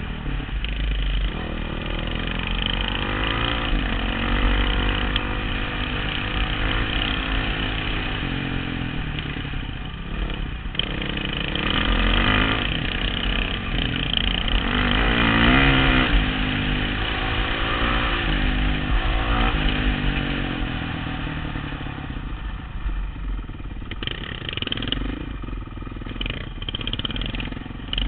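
Dirt bike engine running on the trail, its pitch rising and falling as the throttle is opened and eased off, loudest a little past halfway. A steady low wind rumble on the helmet-mounted microphone runs underneath.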